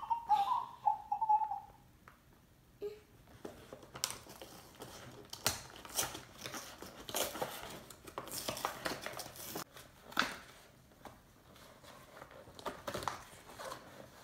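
Clear plastic and cardboard toy packaging crinkling, rustling and snapping in irregular bursts as a plush toy is pulled out of its window box. A short high, wavering voice is heard in the first two seconds.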